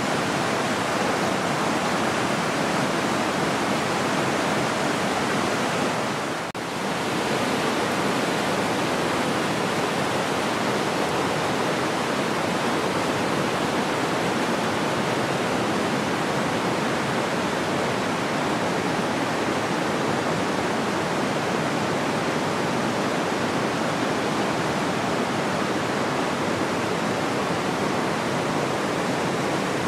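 Rushing water of a river swollen by heavy rain, a steady, even rush that dips briefly about six seconds in.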